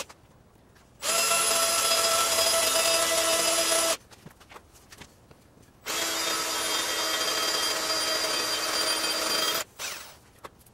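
Cordless drill drilling holes into the back edge of a milling machine table: two steady runs of about three seconds each, with a short pause between them.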